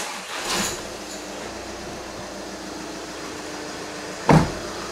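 A 2012 VW Passat 2.0-litre diesel engine started with the push button: it cranks briefly, catches and settles into a steady, quiet idle with its seized AC compressor replaced. A loud thump from the camera being handled a little after four seconds in.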